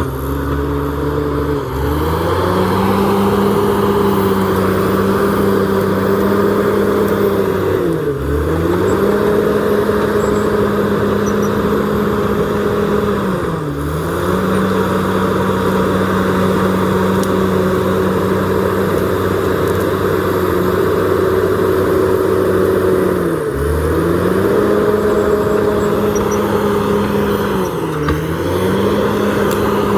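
Komatsu D68ESS crawler bulldozer's diesel engine running at high revs. Its pitch rises about two seconds in, then sags briefly and recovers about four times.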